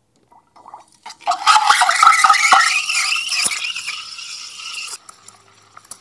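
Lelit Anna 2 single-hole steam wand frothing milk in a steel pitcher: a loud hiss starts about a second in, with a wavering tearing tone and a few pops as air is drawn into the milk. It fades and cuts off about five seconds in.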